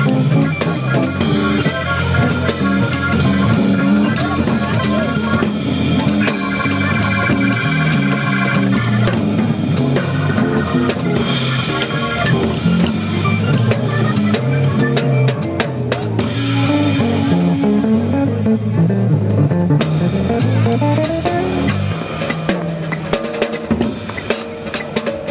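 Drum kit played live in a busy groove of cymbals, snare and bass drum, over music with a guitar and bass line. The cymbals drop out for a few seconds about two-thirds of the way through.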